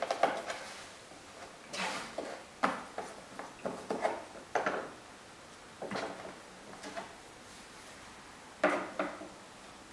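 Cardboard jigsaw puzzle pieces picked up, slid and set down on a plastic table and puzzle board, making irregular light taps and clicks.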